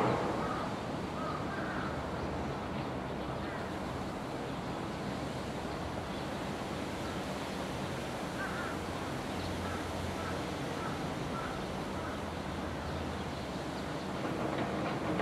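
Steady outdoor background noise with a low hum, and a faint run of short calls, about two a second, around the middle.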